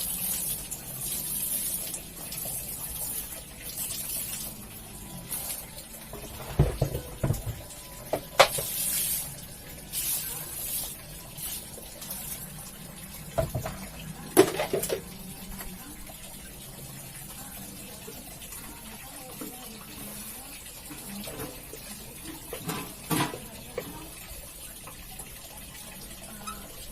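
Water running and splashing during hand-washing of a carpet, with a few sharp knocks and clunks in between; the water sound is strongest in the first few seconds and dies down past the middle.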